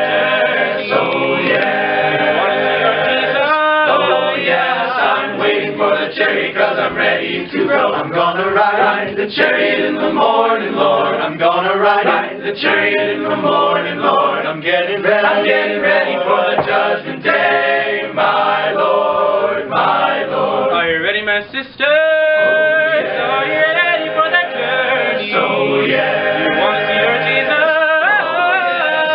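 All-male a cappella group singing in close harmony, several voices together, with one brief break about three quarters of the way through.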